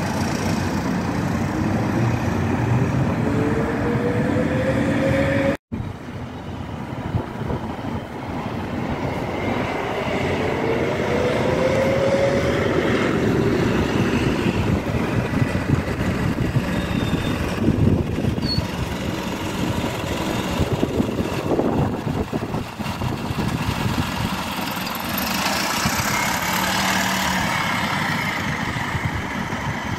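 Single-deck diesel bus engine running and pulling away, its pitch rising twice as it accelerates. The sound drops out for an instant about six seconds in, and there is a spell of hiss near the end.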